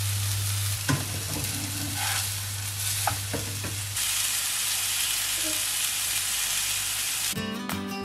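Spinach-and-chicken patties sizzling as they fry in oil in a non-stick frying pan, with a few light clicks in the first few seconds. Music comes in near the end.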